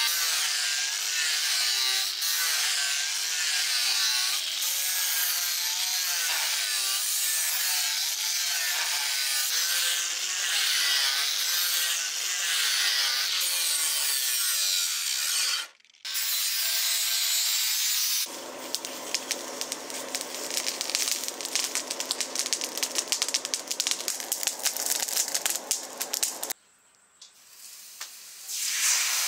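Angle grinder with an abrasive disc grinding the steel blade of a rebar sword, its pitch wavering as it is pressed into the metal. After a short break about 16 seconds in, a dense, steady crackle takes over for several seconds.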